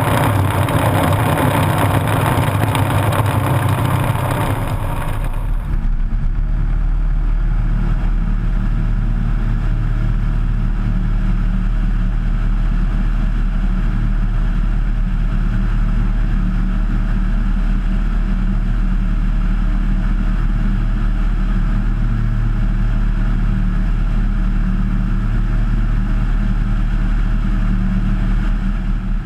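Engine and propeller of a Kitfox IV floatplane running steadily. About five seconds in, the loud hissing part of the sound drops away abruptly, leaving a steady low drone.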